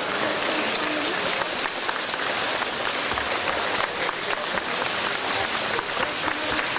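Steady applause from a crowd of schoolchildren, many hands clapping continuously, with a few voices mixed in.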